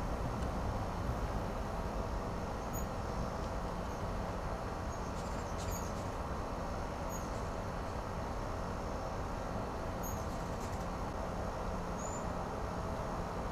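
Steady outdoor background hiss and rumble with a faint steady hum, broken by short, faint high chirps every two or three seconds.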